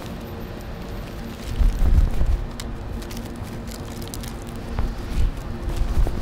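Plastic shopping bags and packaging crinkling and rustling as groceries are handled and packed, with low rumbling gusts of wind on the microphone twice and a faint steady hum underneath.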